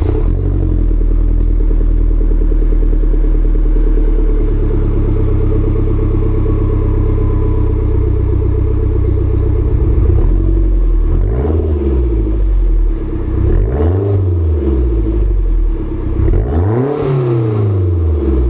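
Toyota MR2 Turbo's 3S-GTE turbocharged four-cylinder running at a steady cold-start idle through an aftermarket eBay exhaust. In the second half it is revved three times, each rev rising and falling back to idle.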